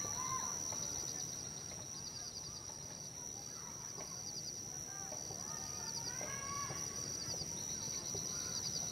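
Outdoor nature ambience: a steady high-pitched drone with regular short chirping trills. A few short pitched calls come in about six seconds in.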